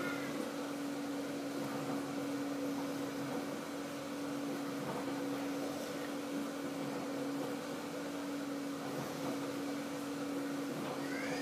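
Steady mechanical hum with one constant low tone, from an appliance or motor running in the background.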